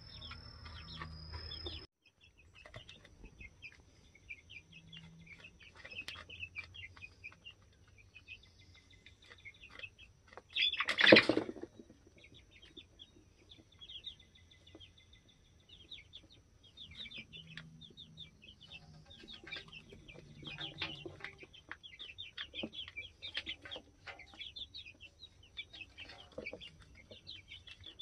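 Young chickens peeping in many short, high chirps, with a few low clucks from an older chicken. About eleven seconds in there is one short, loud burst of noise.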